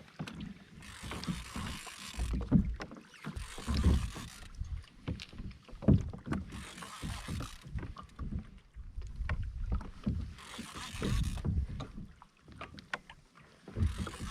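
Sea water sloshing and splashing against a fishing kayak's hull, the hiss swelling and fading every few seconds, with scattered knocks and clicks of gear being handled on the boat.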